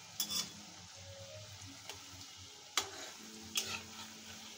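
Noodle pakoras deep-frying in oil in a metal kadai, sizzling steadily. A metal spatula clinks and scrapes against the pan about three times.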